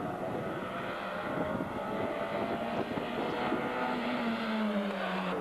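Rally car engine at high revs coming through flat out, its note falling over the last second or so.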